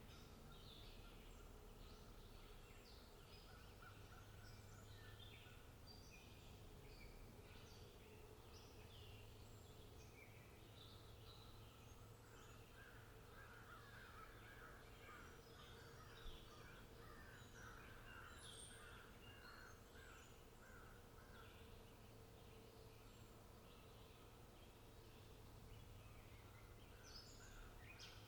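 Faint birds chirping and calling, many short calls throughout, with a quick run of repeated notes from about twelve to nineteen seconds in, over a steady low hum.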